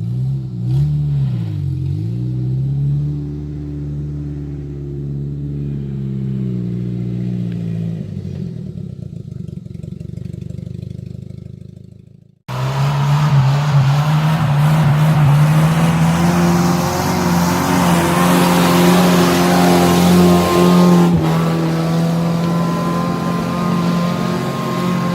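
Suzuki Vitara's 1.6-litre eight-valve engine running under load off road, its revs dipping and picking up again about a second and a half in. About halfway through the sound cuts off abruptly and comes back louder, the engine held at steady revs with more noise over it.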